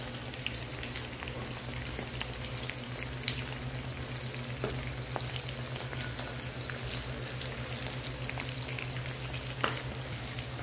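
Fried eggplant slices in a frying pan, oil sizzling steadily with scattered small pops, over a steady low hum.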